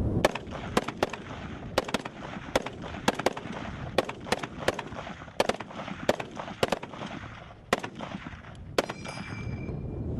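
An M1 Garand in .30-06 and an M4 carbine in 5.56 firing rapidly side by side, about twenty shots in quick, uneven succession. Near the end the last shot is followed by a short metallic ringing ping, the Garand's empty en-bloc clip ejecting.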